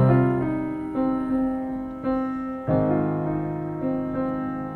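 Background music: slow keyboard chords, a new chord struck roughly every second and fading, between sung lines of the song.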